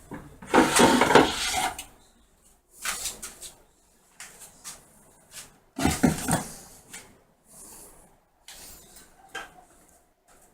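Homemade shop crane being moved with a mini lathe hanging from it: irregular metal clanks and rattles, loudest in a burst near the start and again a little past the middle.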